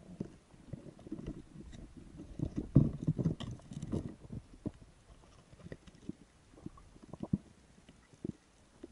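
Muffled underwater thuds and knocks, heard through a camera housing, as a speared fish is worked out of a rock den; the knocks come thickest around three seconds in, then thin out to single taps.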